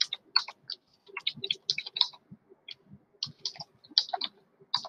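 Typing on a computer keyboard: an uneven run of keystroke clicks with a couple of short pauses.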